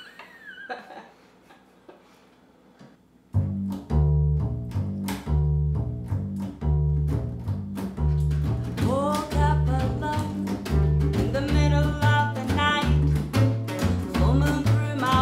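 An acoustic band starts a song about three seconds in: upright bass plucking a bouncing line of low notes with strummed guitars and drum hits. A woman's singing voice comes in about nine seconds in.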